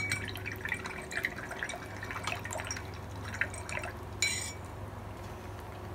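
Paintbrush swished and rinsed in a glass jar of water, with small splashes and the brush tapping against the glass, and a short ringing clink about four seconds in.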